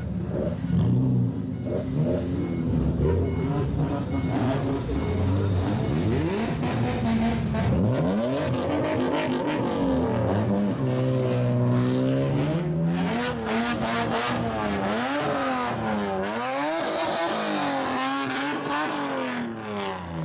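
Loud exhausts of lowered cars, several in turn, revving as they drive off. Engine pitch sweeps up and down, with quick repeated blips of the throttle in the second half.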